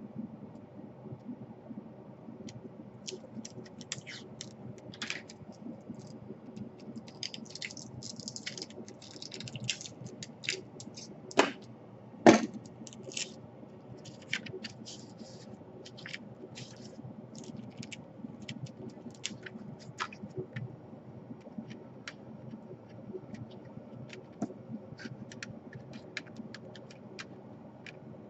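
Small clicks, taps and scrapes of hands handling tools and laptop parts on a workbench, with two louder knocks about twelve seconds in.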